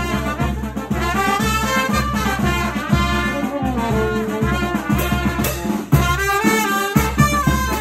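Brass band music, trumpets carrying the melody over a steady bass drum beat; the drum drops out briefly about six seconds in.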